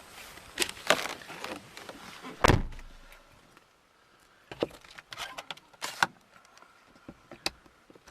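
A heavy slam about two and a half seconds in, a door or lid of a 2011 Hyundai Elantra shutting, among scattered clicks and knocks of handling the car's body.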